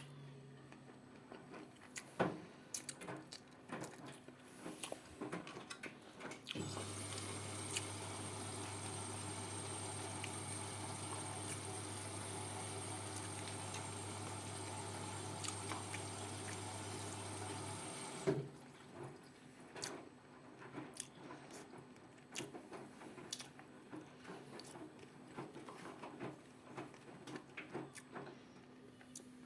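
Ariston 4.5 kg washing machine taking in water at the start of a cotton 40° wash: about six seconds in the inlet valve opens with a low hum and a steady rush of water, which runs for about twelve seconds and shuts off abruptly. Faint scattered clicks and knocks before and after.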